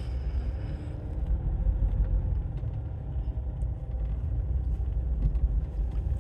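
Road and engine rumble inside a moving car's cabin: a steady low drone from the car driving along.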